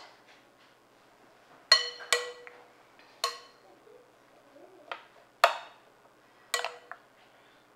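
Metal spoon clinking against a glass mixing bowl and a metal muffin tin while batter is spooned out: about six sharp, irregular clinks, several ringing briefly.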